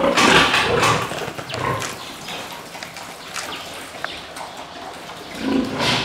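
A large pig grunting at close range, with a loud noisy burst in the first second and a lower grunt near the end.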